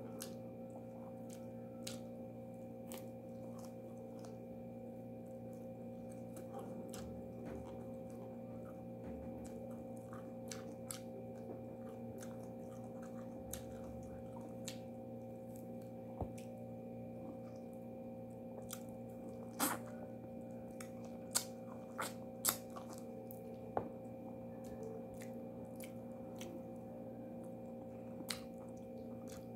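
Close-up eating sounds: quiet chewing and small sharp mouth and finger clicks as food is picked at and eaten, with several louder clicks in the second half, over a steady hum.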